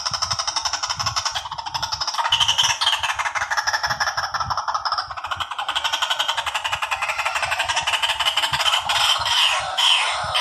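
Recorded white-breasted waterhen calls played loudly through a smartphone speaker as a fast, continuous stuttering chatter. This is a type of lure call that the trapper says makes waterhens flee, taking it for a trap.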